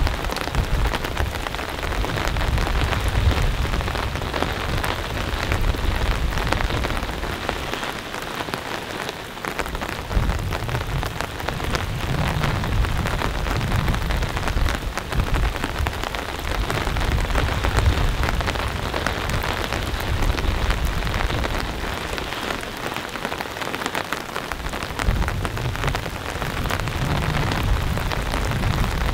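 Heavy rain pouring down, a dense pattering of drops. A low rumble swells and fades several times underneath.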